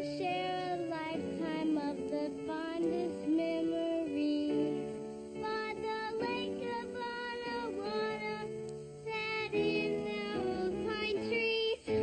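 Children singing a camp song in turns over an instrumental backing: the sitcom's theme song.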